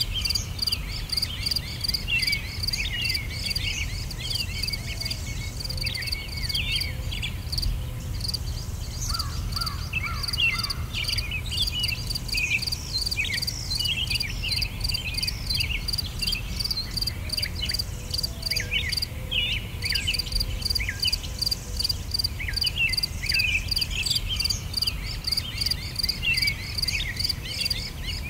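Insects chirping in a steady, rapid pulse, with many short high chirps scattered over it and a low rumble underneath: a nature ambience track.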